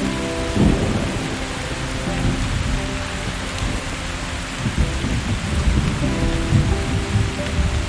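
Steady rain falling, with low rolls of thunder about half a second in and again a little past the middle. Soft sustained piano notes play underneath.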